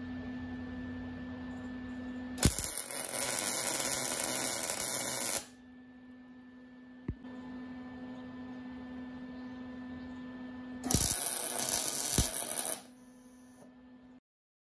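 MIG welder laying two short welds on a steel go-kart frame: about three seconds of arc noise, then about two seconds more near the end, each starting with a sharp click. A steady electrical hum runs between the welds.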